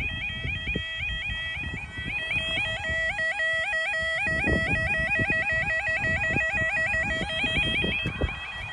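Level crossing yodel alarms sounding a repeating warbling tone to warn of an approaching train; a second alarm tone joins about two seconds in, and both cut off shortly before the end. Wind buffets the microphone underneath.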